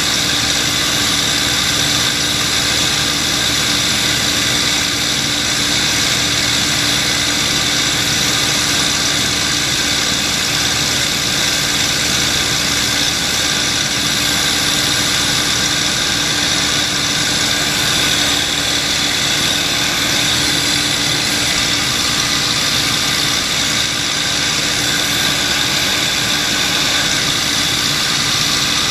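The Packard Merlin V12 of a P-51D Mustang running steadily in flight, heard from inside the cockpit.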